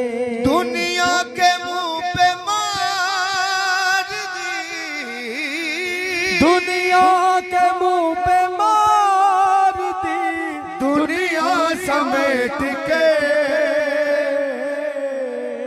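Male voices singing a manqabat, a Shia devotional song, through microphones: long, drawn-out notes with wavering ornaments, over a held low note.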